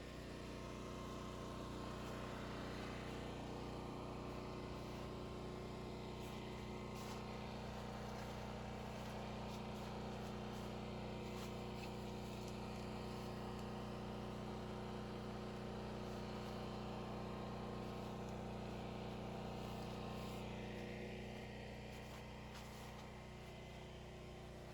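Steady machine hum with several low, even tones. It grows louder about half a second in and eases off near the end.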